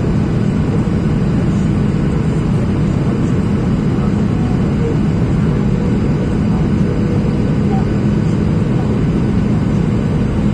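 Steady cabin noise inside a Boeing 737-800 on final approach: the deep, unchanging rumble of its CFM56 engines and airflow past the fuselage, heard from a window seat over the wing.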